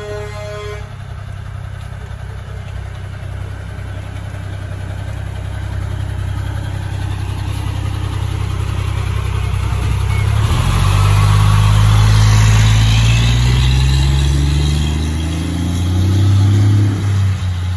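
Fire engine's diesel engine idling, then revving and pulling away from about ten seconds in, its pitch climbing, dropping at a gear change and climbing again. A truck horn sounds briefly at the very start.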